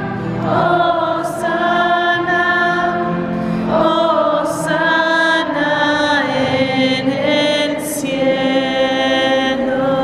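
Several voices singing a hymn together, with long held notes and clear sibilants between phrases.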